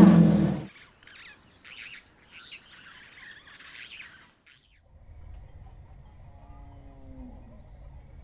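The end of a loud elephant call cuts off within the first second. Then come faint bird chirps, and from about halfway a low rumble with a faint falling call in it near the end.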